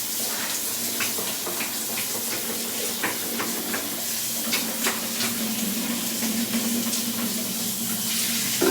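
Shower water running and splashing steadily, with scattered small clicks and knocks. A low hum comes in about halfway through.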